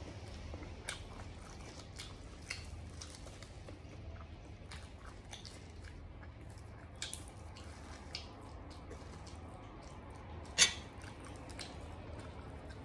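Close-miked chewing of braised pork offal, with scattered sharp clicks and one much louder click near the end.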